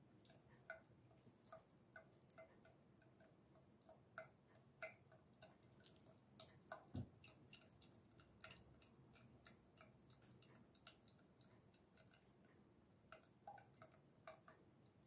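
Near silence with faint, irregular ticks, about two a second with pauses, from used cooking oil dripping slowly through a muslin cloth into a stainless steel bowl.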